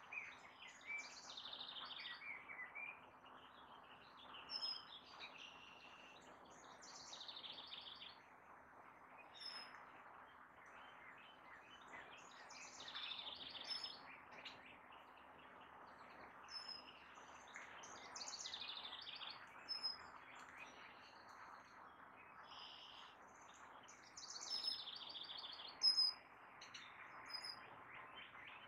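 Small songbirds singing, a high, rapid phrase every few seconds, over a faint steady background hiss.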